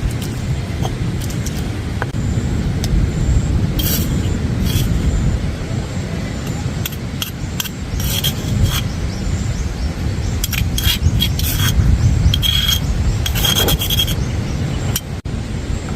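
Strong wind buffeting the microphone as a steady low rumble, with scattered short rustling and scraping sounds, clustered from about a third of the way in toward the end.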